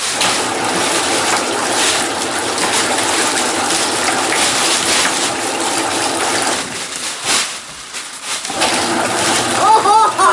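Washing machine running, water churning and sloshing in the tub, with a short lull about seven seconds in. A child's voice comes in near the end.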